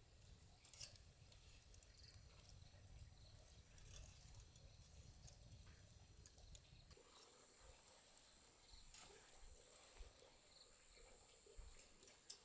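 Near silence: faint ambience with scattered soft clicks, and a faint steady high-pitched tone that comes in about seven seconds in.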